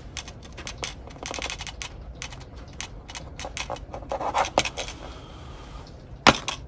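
Pen scratching across paper on a plastic clipboard as a signature is written, a run of quick short strokes for the first few seconds. Near the end a single sharp knock as a rubber stamp is pressed onto the sheet.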